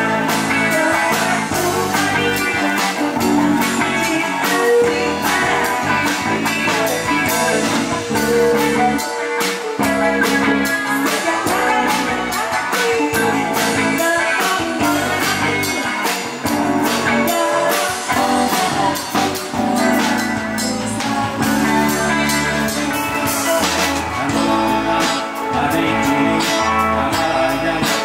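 Live band playing amplified music: electric guitar, bass guitar, keyboard and drum kit over a steady beat, with singing.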